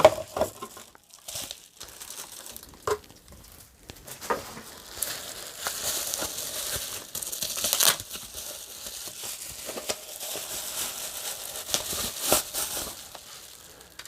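Packaging crinkling and rustling in spells, with scattered sharp clicks, as a new PC power supply is unwrapped by hand.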